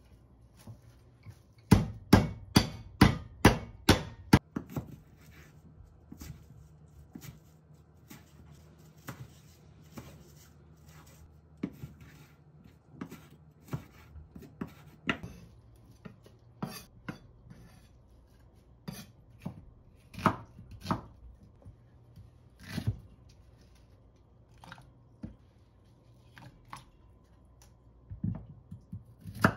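Kitchen knife chopping dallae (Korean wild chives) on a wooden cutting board: a quick run of about eight loud strokes a couple of seconds in, then slower, scattered cuts.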